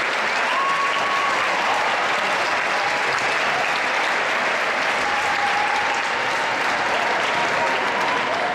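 Large crowd giving a standing ovation: steady, sustained applause from many hands clapping at once.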